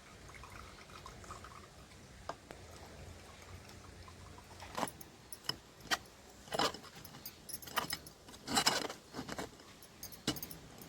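A series of sharp clinks and short rattles from kitchen things being handled, starting about halfway through, with one longer rattle near the end.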